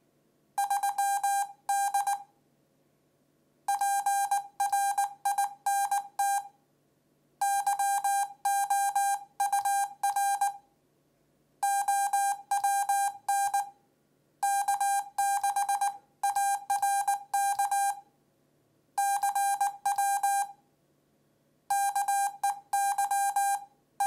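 Morse code sidetone beeping from the small speaker of an HRS CW Hotline as a K6ARK 3D-printed paddle keys it: one steady pitch of about 800 Hz sent as dots and dashes, in about seven runs with short pauses between.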